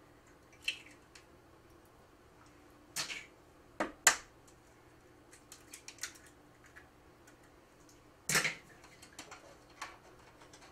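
Eggs being cracked by hand over a plastic food processor bowl: a few scattered sharp cracks and clicks of eggshell, the loudest about four seconds in, with faint ticks of shell being pulled apart between them and a brief rustle near the end.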